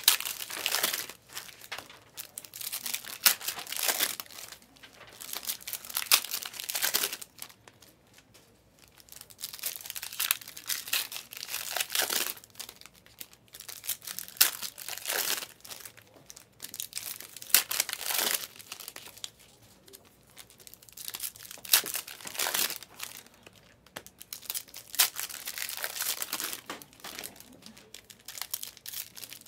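Foil trading-card pack wrappers being torn open and crinkled, in repeated rustling bursts every couple of seconds.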